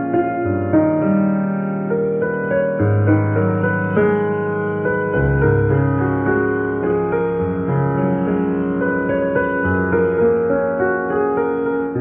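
Background music on a keyboard: held chords over a bass line that changes note every second or two.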